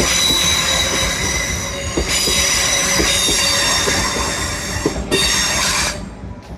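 TransPennine Express Class 802 train rolling through the station, its wheels squealing in several high steady tones over the running rumble, with short clicks from the wheels at intervals. The sound cuts off sharply near the end.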